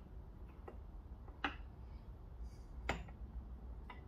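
Two sharp metallic clicks about a second and a half apart, with a few lighter ticks, as small motorcycle gearbox parts are handled and knocked together while the selector mechanism is stripped.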